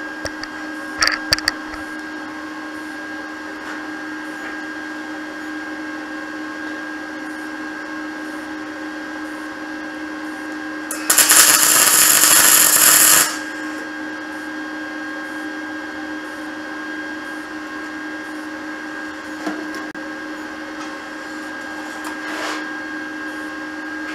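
MIG welder striking a tack weld: one loud, even crackle lasting about two seconds, midway through, fixing the pipe to the flange. A few sharp clicks come about a second in, over a steady hum.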